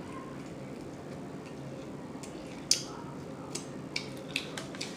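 Close-up chewing with wet mouth smacks: one sharp smack about two and a half seconds in, then a quick run of smaller smacks and clicks near the end, over a low steady hum.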